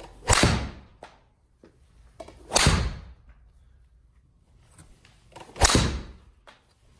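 PXG 0811 Gen 2 driver striking a golf ball three times, a sharp crack every two to three seconds, each with a short echo after it.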